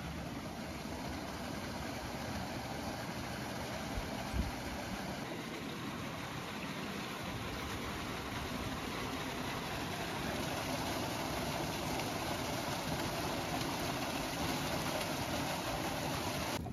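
Steady rush of water gushing from a pipe outlet and splashing into a concrete tank, growing slightly louder later on as the stream is caught in a plastic bowl. A brief low thump about four seconds in.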